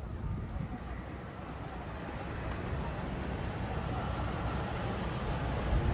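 Steady low rumble of city traffic, growing a little louder over the clip.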